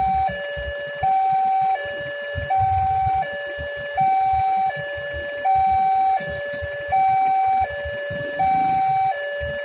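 Railway level-crossing warning alarm sounding its electronic two-tone signal, a higher and a lower note alternating steadily about every three-quarters of a second. It is the sign that the crossing is closed for an approaching train.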